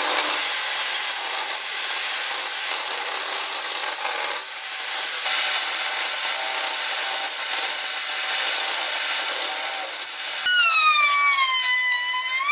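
Table saw cutting a thin strip of wood: a steady rasping hiss of blade through wood. In the last couple of seconds it gives way to a high pitched whine that dips and rises in pitch.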